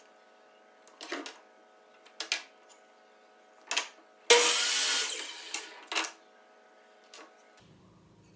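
Electric miter saw crosscutting a board: a sudden loud burst about halfway through that lasts under a second, then fades as the blade slows. A few short knocks come before it.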